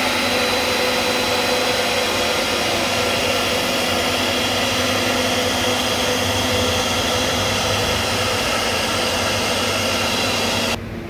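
CNC router running with a steady motor whine and hiss. Near the end the high part of the sound cuts off suddenly and it turns duller and quieter.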